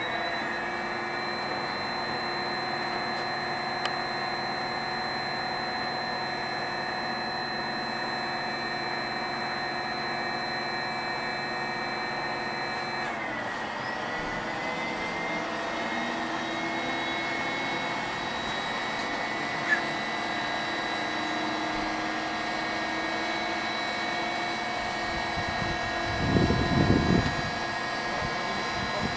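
Starter of an Il-14's ASh-82T radial engine whining steadily, having just wound up to speed, with a brief dip and slight shift in pitch partway through. Near the end comes a short low rumble.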